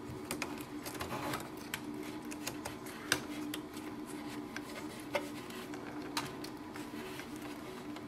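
Scattered light clicks and taps of hands working plastic parts and ink-tube fittings inside an opened Epson EcoTank printer, over a steady low hum.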